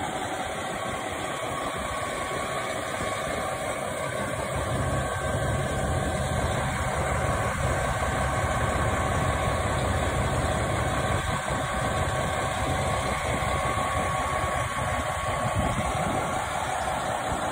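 KiHa 261 series diesel railcar idling at a standstill: a steady low engine rumble that grows a little stronger about five seconds in, with a steady whine above it.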